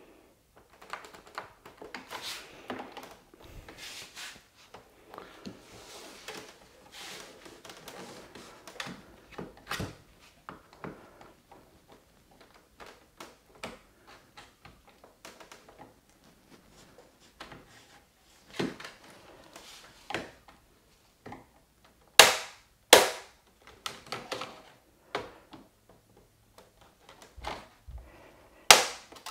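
Screwdriver prying and scraping along the seam of a Dell U3415W monitor's plastic back cover, with scattered small clicks and creaks. There are three loud, sharp snaps of the case's retaining clips popping loose, two close together about three-quarters of the way in and one near the end.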